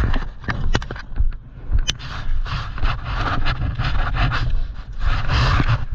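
A person breathing hard in repeated breaths, over a steady low rumble, with scattered clicks and knocks.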